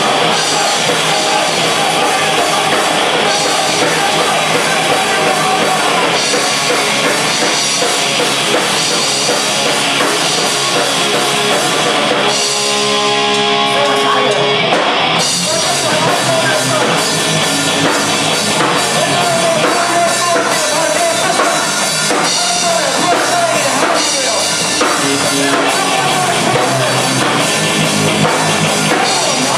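Live punk rock band playing: electric guitar, bass guitar and drum kit, with vocals. About twelve seconds in, the drums and cymbals drop out for roughly three seconds, leaving steady held notes, before the full band comes back in.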